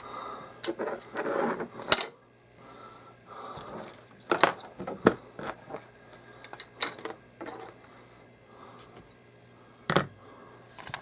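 Handling noise: a handheld camera being picked up and moved, with scattered sharp clicks and light knocks and short stretches of soft rubbing.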